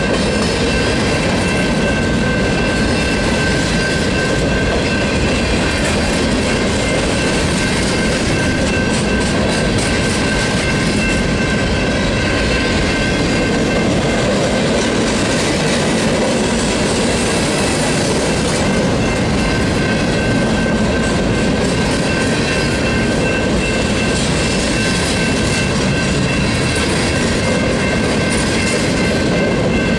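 Freight cars rolling steadily past a grade crossing, their wheels clicking over the rail joints, with a steady high tone running through it.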